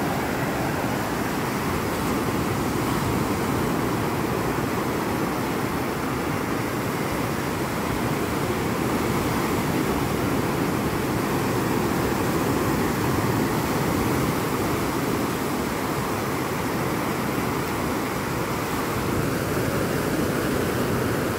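Rough, storm-swollen surf washing in over the shallows in a steady, even rush of water.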